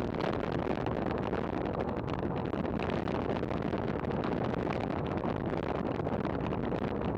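Steady rush of wind over a bike-mounted camera's microphone, mixed with tyre and road noise from a racing bicycle riding at speed.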